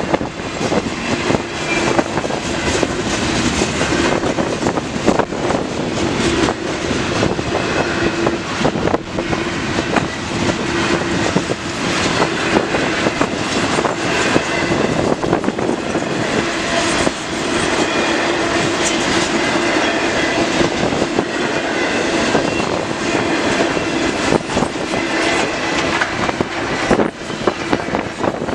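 Freight train of intermodal cars rolling past steadily, its steel wheels clicking and clacking over the rail joints, with a steady humming tone underneath.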